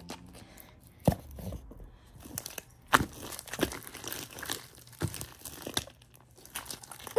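Bare hands squeezing and kneading a sticky, fluffy slime, with irregular wet crackles and pops as it squishes between the fingers, two louder pops about one and three seconds in.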